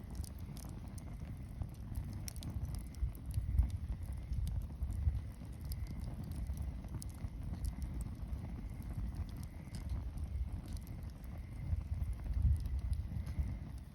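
Wood bonfire crackling: scattered sharp pops and snaps over a steady low rumble.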